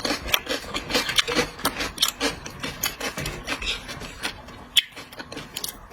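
Close-up eating sounds: rapid, irregular crackling and clicking from chewing seafood.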